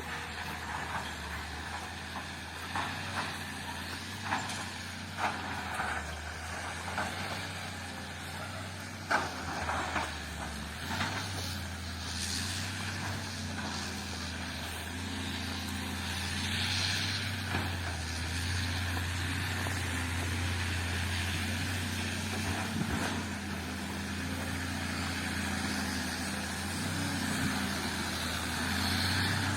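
Heavy diesel earthmoving machine running steadily under load, with sharp knocks and clanks through roughly the first dozen seconds.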